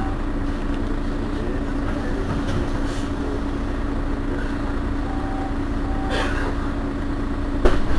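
Mercedes-Benz Citaro Facelift city bus idling at a stop, its rear engine giving a steady hum. A sudden knock comes near the end.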